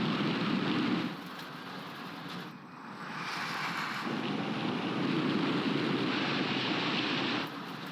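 Rushing wind noise, with no engine or motor tone in it, coming in surges: loud for about the first second, quieter for about two seconds, then loud again from about three seconds in until shortly before the end.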